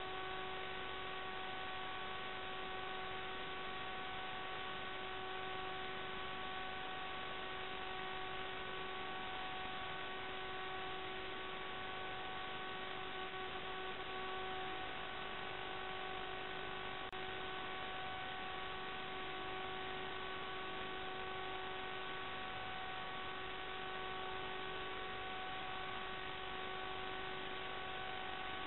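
Steady electrical hum and hiss from a small onboard camera's recording circuit: several fixed high whining tones over a constant hiss, unchanged in pitch and level.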